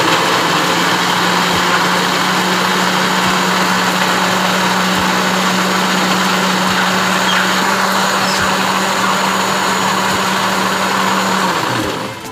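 Westpoint countertop blender motor running steadily under load, grinding herbs, garlic and yogurt into a green paste, with a steady hum under the whir; the motor switches off near the end.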